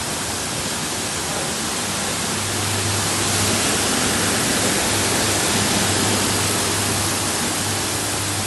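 Industrial carpet washing machine running, a steady rush of water and machinery with a low hum that grows louder about two and a half seconds in.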